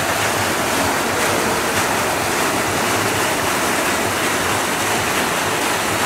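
Steady rush of water pouring from the ends of water slides and splashing into a swimming pool.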